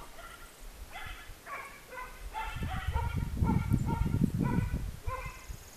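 A dog barking repeatedly in short, high yaps, two or three a second, with wind rumbling on the microphone around the middle.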